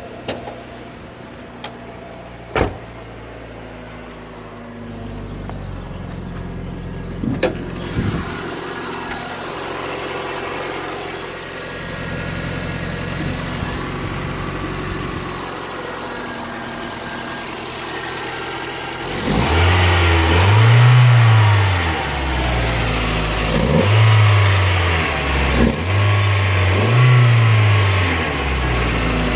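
Mazda Miata engine: a few sharp clicks, then the engine running at idle, then revved up and down about four times in the last ten seconds. The owner is trying to find a rattle he can't pinpoint, despite a new clutch, throwout bearing and pilot bearing.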